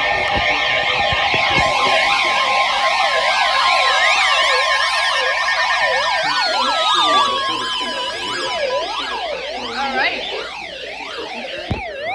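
Several sirens sounding at once, their rising and falling wails overlapping, with a few long falling tones in the middle. Near the end the sweeps speed up into a faster yelp.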